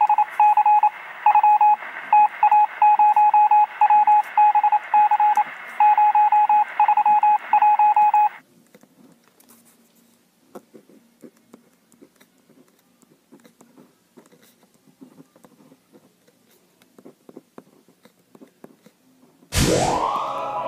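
Electronic beeping at one steady pitch, in short and longer beeps like Morse code, for about eight seconds. It stops abruptly and leaves faint ticks. Near the end a loud rising swoosh brings in electronic music.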